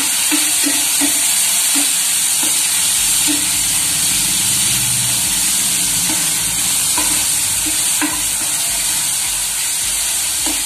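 Sliced onion and chopped tomato frying in hot oil in a frying pan, a steady sizzle. A steel spatula stirs and scrapes through them with scattered light knocks against the pan.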